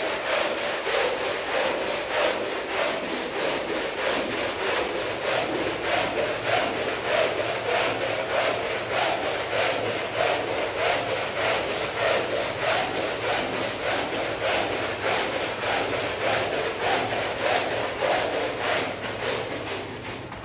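A rug being scrubbed by hand with a brush, in steady rhythmic back-and-forth strokes of about two or three a second.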